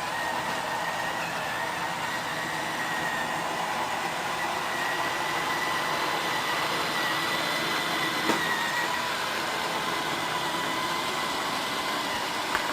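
Roomba robot vacuum running: a steady whir of its motors and brushes with a constant high whine, and a single short knock about eight seconds in.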